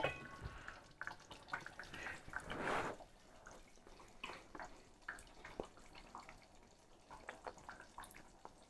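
A metal spoon clinks on a steel saucepan with a brief ring, then a spoonful of hot ragù is sipped from the spoon, followed by faint wet mouth clicks of tasting.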